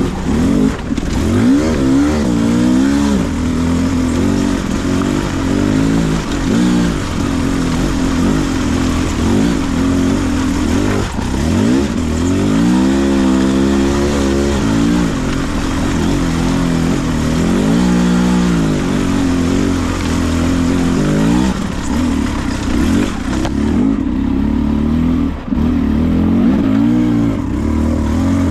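Beta 300RR two-stroke single-cylinder enduro motorcycle engine under way at low speed, the throttle opened and closed again and again so the pitch rises and falls in short surges.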